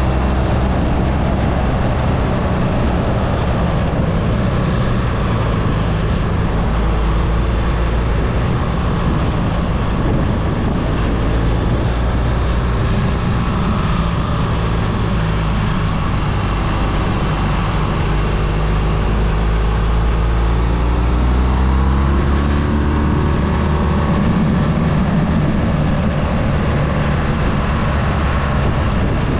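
Vehicle engine driving uphill, its note rising and falling with throttle and gear changes, over a steady loud low rumble.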